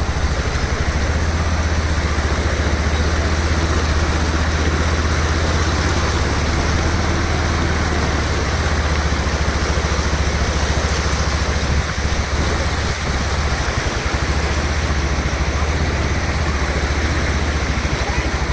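Motorcycle engine running steadily through floodwater, with a continuous rush of water over a low engine drone.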